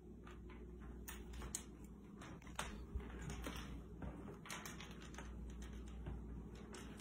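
Cat wand toy dragged and tapped across a hardwood floor: light, irregular clicks and scrapes, several a second at times, over a low steady hum.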